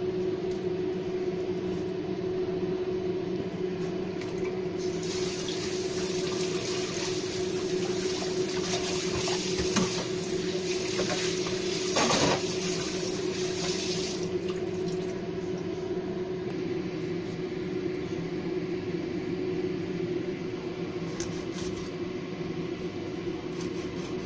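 Tap water running into a stainless steel sink and splashing over a fish tail as it is rinsed and rubbed by hand, the splashing louder for several seconds in the middle. A steady low hum runs underneath, with a couple of short knocks near the middle.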